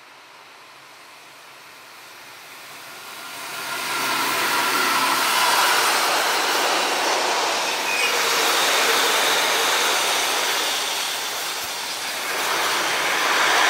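Freight train hauled by two DB Class 185 electric locomotives passing close by, getting much louder about three to four seconds in as the locomotives arrive, then a steady rolling rush of the wagons going past. Faint high tones of wheels squealing on the curve run through it.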